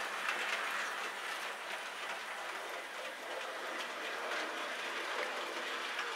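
OO gauge model tank wagon train, hauled by a model steam tank locomotive, running along the track: a steady mechanical running noise with many small wheel clicks over the rail joints.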